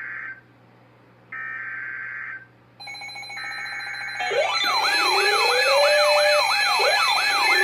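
Emergency Alert System header data bursts: short bursts of buzzy digital tone about a second long, with short gaps between, the standard three-times-sent coded header that opens an alert. From about three seconds in, a loud layered alert tone builds up: steady high tones, then, about four seconds in, fast repeating siren wails over a slower rising siren wail.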